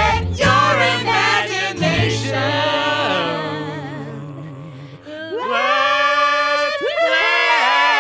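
Group singing in a sing-along song: voices sing over the band for the first few seconds, and the accompaniment fades away. From about halfway through, the voices hold a long chord without instruments.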